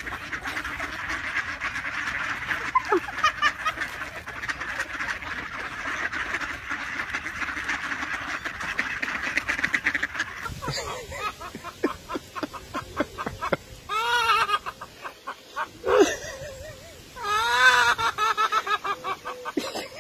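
A large flock of mallard ducks quacking all at once, a dense continuous din. After about ten seconds it gives way to scattered clicks and a few separate loud calls.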